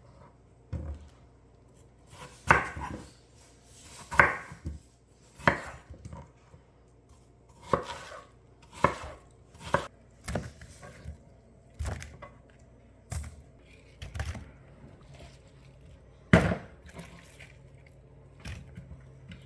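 Knife cutting watermelon into bite-sized pieces, chopping down onto a cutting surface about a dozen times at an uneven pace, roughly one cut every second or two.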